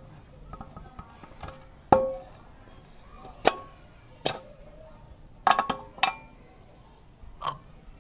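Metal tools and parts clinking and knocking as a scooter is worked on: about seven separate hits, some ringing briefly, the loudest about two seconds in and a quick double knock about halfway.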